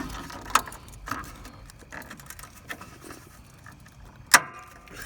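Scattered metallic clicks, knocks and scrapes of hand tools working at rusty headlight screws and trim that barely break loose, with one sharp click a little after four seconds in the loudest.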